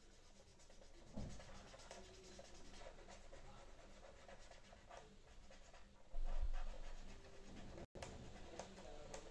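A pen scratching on paper in repeated strokes, colouring in an origami fish's markings in black. There is a soft low bump about a second in and a louder one about six seconds in.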